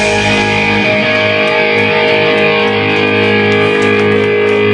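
Live rock band with electric guitar holding a loud, sustained chord that rings steadily.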